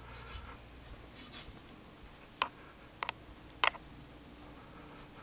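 Quiet room tone with a faint steady hum, broken by four sharp clicks in quick succession a little past the middle.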